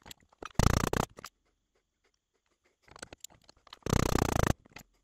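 Wooden chisel handle being twisted and forced down onto a gouge's tang clamped in a bench vise: two scraping bursts of under a second each, wood grating against the steel, with a few small clicks between.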